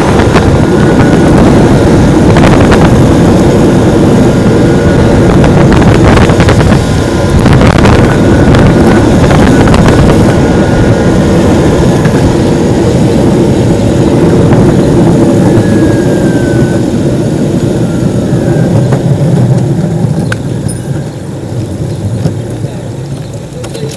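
Heavy wind noise buffeting the microphone while riding a Metroboard electric skateboard, with the rumble of the board underneath. It eases off over the last few seconds.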